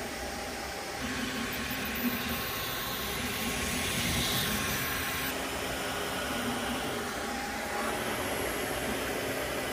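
3D printers running mid-print, an Anycubic Kobra and a Sovol: a steady fan hiss with the faint shifting hum of the stepper motors as the print heads move. The sound changes about a second in and again around five seconds in.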